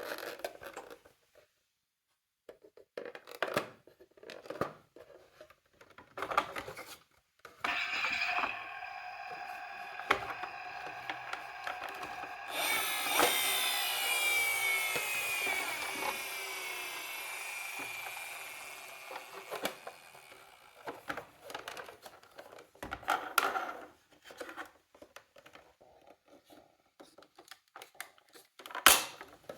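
Toy emergency-vehicle mini car with its electronic siren sounding and its wheels whirring on a slope: a steady toy tone starts about a quarter of the way in, is joined by a hissy rush with wavering pitch about halfway, and fades out about two-thirds through. Light clicks and knocks come before and after.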